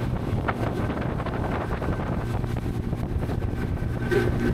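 Motorboat engine running steadily, with wind blowing on the microphone.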